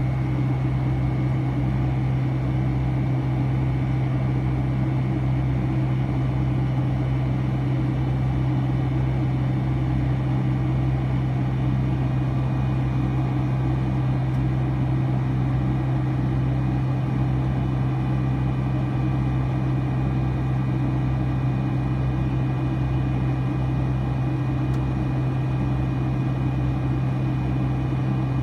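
Steady in-cabin noise of a Boeing 757-200 climbing after takeoff, heard beside the wing: its Pratt & Whitney PW2037 turbofans hold a constant low drone with a faint steady high whine, over the even rush of air past the fuselage.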